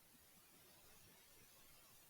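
Near silence: faint room tone and hiss in a pause between spoken phrases.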